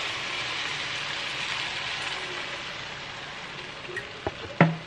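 Blended chile salsa poured into a hot frying pan of cooked meat, sizzling steadily and slowly dying down. Two sharp knocks near the end, the second the loudest sound.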